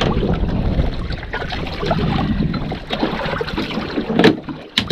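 Wind buffeting the microphone and water slapping around a small boat drifting at sea. Two sharp knocks come near the end.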